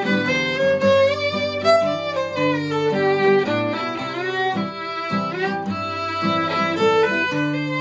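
Fiddle and acoustic guitar playing an old-time waltz: the bowed fiddle carries the melody, with some slides between notes, over strummed guitar chords.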